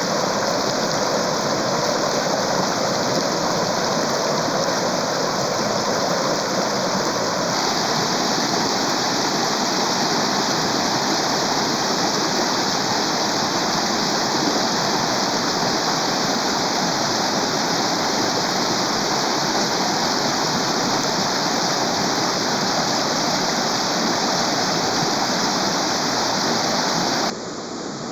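Rushing water, such as a waterfall or fast stream, as a steady roar. Its tone changes about seven seconds in, and it gets quieter shortly before the end.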